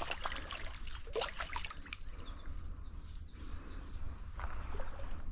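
Stream water trickling and running steadily. Several sharp splashes and clicks come in the first two seconds.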